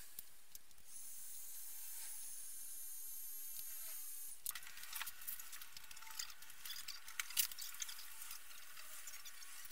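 Handheld heat gun blowing with a thin, steady, high hiss for a few seconds, then stopping abruptly. Scattered light clicks and crackles follow.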